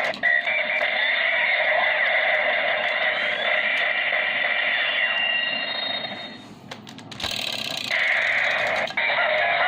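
Electronic sound effects and music played through the small, tinny speaker of a DX Gaburevolver toy transformation gun, triggered by an inserted Zyudenchi. The sound breaks off briefly about six and a half seconds in, then starts again.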